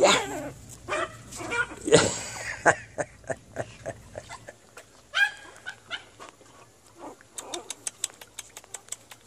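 Yorkshire terrier puppies giving a few short, high-pitched yips and small barks, the loudest about two seconds in. A quick run of light clicks follows near the end.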